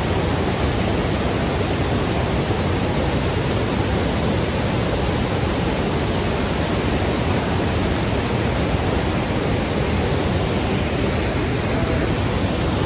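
Steady, loud rush of a large waterfall, white water pouring and churning over rock close at hand, unbroken throughout.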